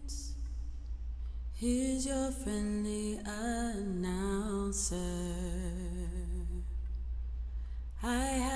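A single unaccompanied voice singing a slow melody without words, holding long notes with vibrato, with a short pause near the end. A steady low hum runs underneath.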